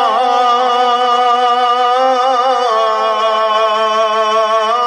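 A man's voice holding one long, ornamented note in melodic Quran recitation (tilawat), the pitch wavering and then stepping down slightly about three seconds in.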